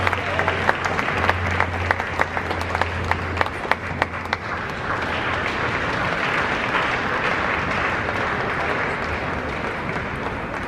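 Arena crowd applauding after a table tennis point. Sharp separate claps stand out over the first four seconds, then the applause settles into a steady wash of crowd noise.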